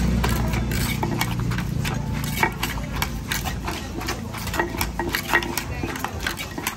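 Papaya salad being pounded and mixed in a clay mortar: a wooden pestle knocking and a spoon scraping and tossing, a run of irregular knocks several a second. A low rumble fades out over the first two seconds.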